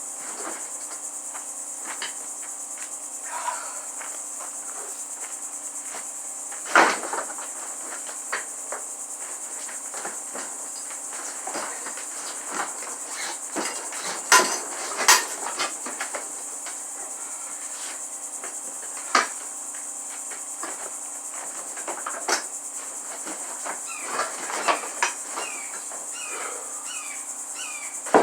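Scattered sharp knocks and clanks, about a dozen, the loudest about seven, fifteen and nineteen seconds in, over a steady high-pitched drone.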